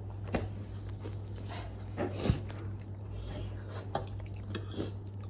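Close-miked eating sounds of a spicy noodle mukbang: soft chewing with scattered small clicks, the sharpest about two seconds in, over a steady low electrical hum.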